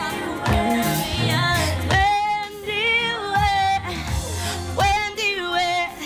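Gospel music: a woman singing long, wavering notes over instrumental backing.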